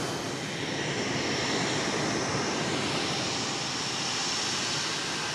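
Jet engines of NASA's Shuttle Training Aircraft, a modified Gulfstream II business jet, running: a steady rush of engine and air noise with a faint high whine over it.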